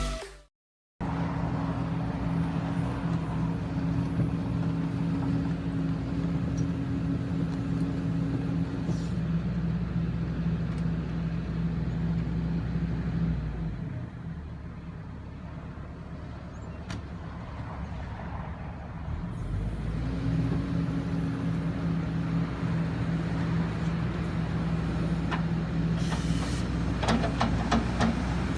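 Kobelco SK140-8 excavator's diesel engine running steadily with a low hum. About halfway through it drops lower for several seconds, then comes back up. A few sharp knocks come near the end.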